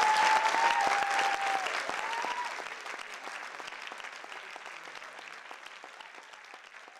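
Theatre audience applauding with a few cheers in the first couple of seconds, the applause fading out steadily.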